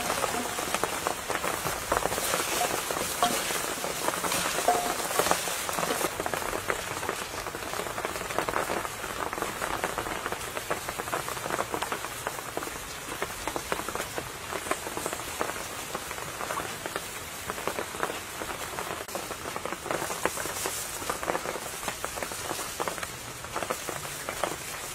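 Plastic-gloved hands squelching and crinkling as they handle a wet, marinated raw whole chicken and pack chopped vegetables into it: a dense, steady crackle of small wet clicks.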